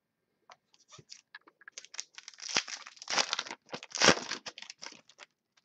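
Plastic crinkling and rustling in quick, irregular strokes as trading cards are handled, loudest about halfway through.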